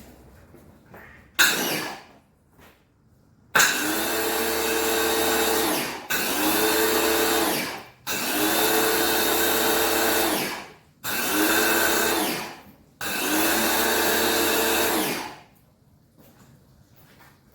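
Ryobi electric pressure washer's motor and pump running in five spurts of about two seconds each, starting and stopping as the spray gun's trigger is squeezed and released while it sprays car shampoo foam. A short burst comes first, about a second and a half in.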